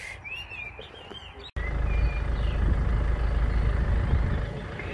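Small birds chirping faintly against a quiet background. After an abrupt cut about a second and a half in, a steady, much louder low rumble takes over.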